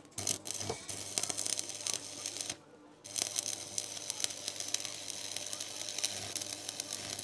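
Electric arc welding on the steel rotor drum of a mini tractor's rotary harrow: a steady crackling sizzle with a low hum underneath. It stops for about half a second roughly two and a half seconds in, then the arc strikes again.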